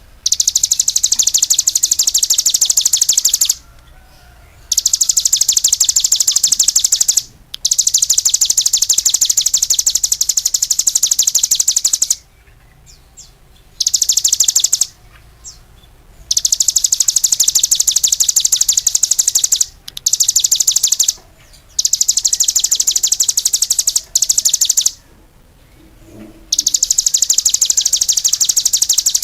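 Cigun songbird singing long, very rapid high-pitched trills in bouts of one to five seconds, with short pauses between them.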